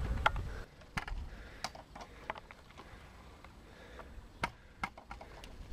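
A dozen or so scattered light clicks and taps of handling noise, irregular, with a low rumble in the first half-second.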